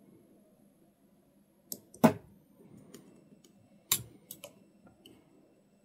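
Battery spot welder firing through hand-held pen probes onto a 0.2 mm pure nickel strip laid over the pack's existing nickel plate, on a strong double-pulse setting: two sharp welding snaps about two seconds apart, the first the loudest, with a few smaller clicks around them.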